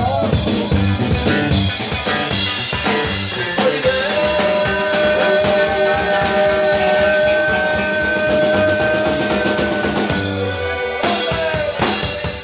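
Live band playing dance music over a PA, with a steady drum beat and a long held note from about four to ten seconds in.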